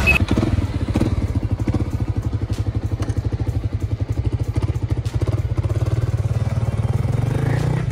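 Kawasaki D-Tracker 250's single-cylinder four-stroke engine running at low revs with a rapid, even pulsing beat; the revs lift a little near the end.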